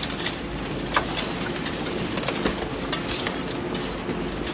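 A conveyor carrying loose waste cardboard and packaging runs with a steady mechanical hum and irregular rattles and clicks.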